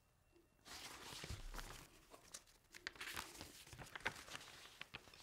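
A picture book's paper page being turned by hand: faint rustling and crinkling of paper starting just under a second in, with a few small clicks of handling.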